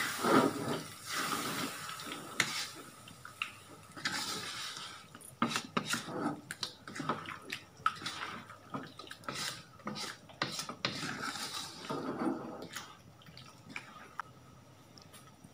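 A spatula stirring chicken curry in a wok, with repeated scrapes and knocks against the pan and wet sloshing of the tamarind-water masala. The stirring sounds are busiest in the first twelve seconds and thin out near the end.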